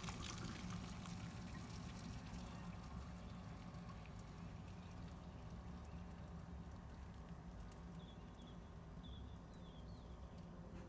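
Faint steady trickle and drip of water running off freshly drained macaroni, slowly fading, with a few short high chirps near the end.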